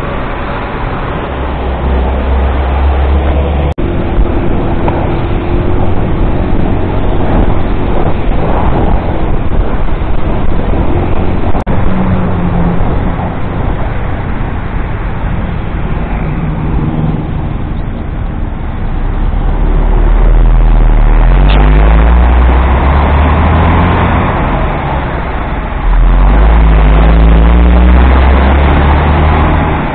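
Riding a motorcycle in traffic: steady engine and road noise, with the engine rising in pitch in short spurts of acceleration several times. A heavy low rumble is loudest in the second half.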